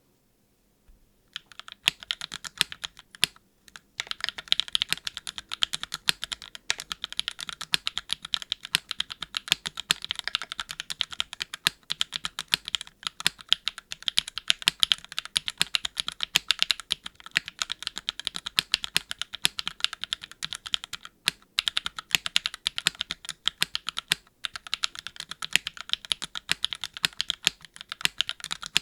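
Fast, continuous typing on a Keycult No.2 TKL custom mechanical keyboard with Gateron x Swagkey Deepping switches, GMK keycaps, and a gasket-mounted aluminum plate with no foam. It is a dense run of sharp keystroke clacks, with a few brief pauses.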